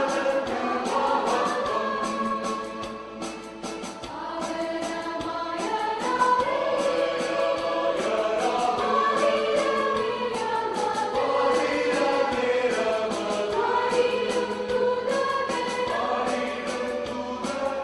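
A church choir singing a Malayalam song, women's voices in front, backed by a steady beat.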